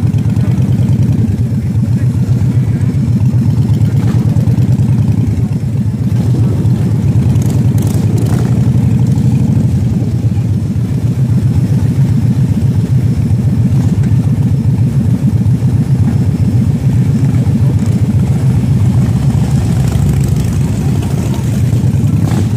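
Motorcycle engine running steadily at low road speed, a low, evenly pulsing engine note heard from the bike itself.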